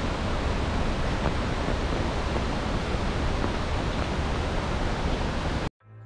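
Steady rushing of falling water, a dense even hiss with a deep rumble underneath; it cuts off abruptly near the end.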